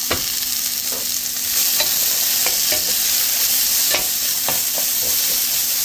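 Sliced red onion sizzling in oil in a frying pan as a spatula stirs it, with scattered light knocks of the spatula against the pan. The sizzle gets a little louder about a second and a half in.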